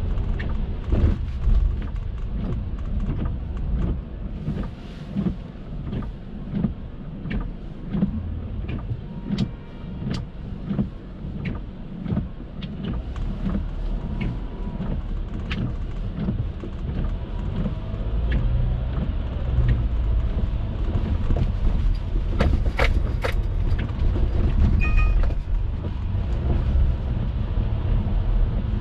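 Car driving in the rain: a steady low road and engine rumble with many scattered clicks and knocks, growing a little louder in the second half, and a short high tone about 25 seconds in.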